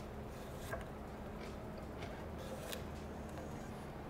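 Shun Premier nakiri knife slicing through a cucumber, with a few faint ticks as the blade meets the wooden cutting board.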